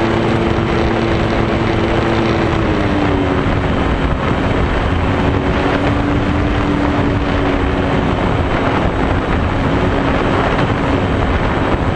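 RC foam airplane in flight heard from on board: heavy wind rush over the microphone with a steady motor-and-propeller hum that drops in pitch about three seconds in as the throttle comes back.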